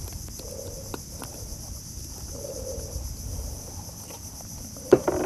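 Steady, high-pitched chorus of insects that runs on unchanged, with a few sharp clicks, the loudest one near the end.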